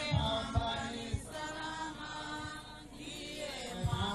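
A group of people singing together, a chant-like hymn in long held notes, with a few short low thumps on the microphone.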